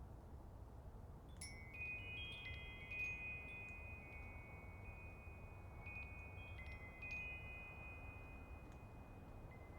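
Wind chimes struck by a breeze: after about a second of quiet, several light strikes set high, clear tones ringing and overlapping, over a faint steady low rumble.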